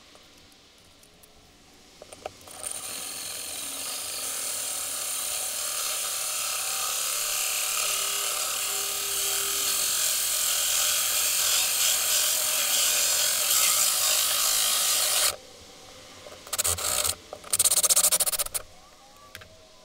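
Cordless drill with a 2¾-inch hole saw cutting through the boat's cabin wall. The steady grinding cut starts about two and a half seconds in and grows gradually louder, then stops abruptly; two short bursts of drilling follow near the end.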